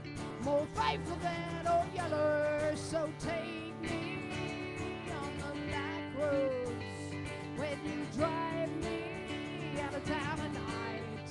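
Live band performing a song: a lead vocal sung into a microphone, with held, wavering notes, over strummed guitar accompaniment.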